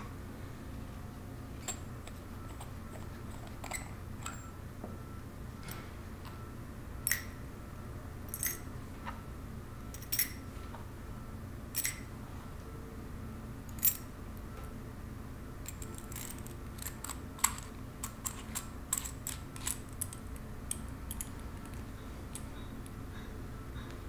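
Small metal clicks and clinks from a brass capsule multi-tool being handled: its steel bits and brass halves tapping together as it is taken apart, a bit is swapped and it is put back together. The clicks are scattered, with a quick run of them in the second half, over a steady low hum.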